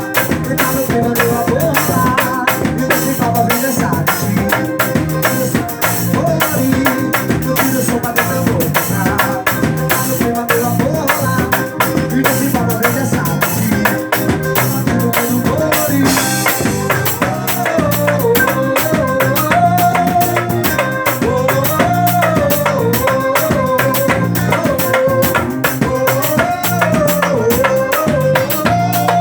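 Carnival band music at rehearsal: a dense, fast beat of drums and rattles, with a wavering melody line that comes to the fore from about halfway through.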